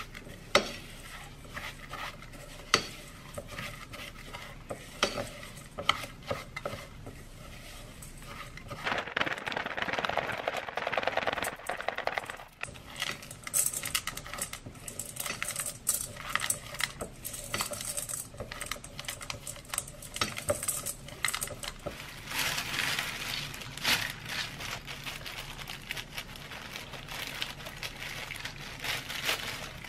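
Silicone spatula stirring and scraping oat cookie dough around a stainless steel mixing bowl, with scattered sharp knocks of the spatula against the bowl in the first few seconds and long stretches of steady scraping in the middle.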